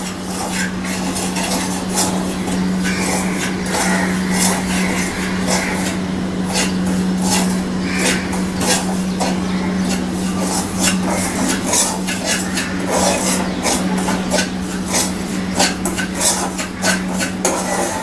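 Steel spoon scraping and clinking against a kadhai as semolina is stirred while it dry-roasts, in quick irregular strokes over a steady low hum.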